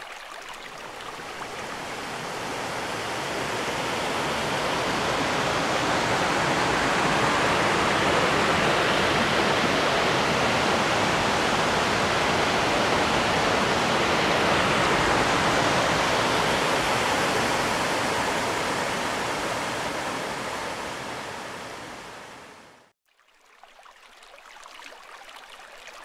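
Rushing water of a rocky mountain stream cascading over boulders. It is a steady rush that fades up over the first several seconds and fades out a few seconds before the end.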